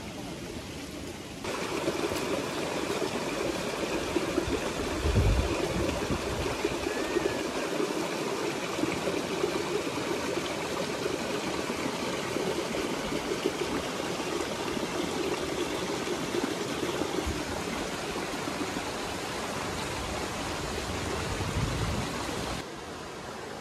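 Stream water rushing steadily, starting abruptly about a second and a half in and cutting off shortly before the end. A low thump comes about five seconds in and another near the end.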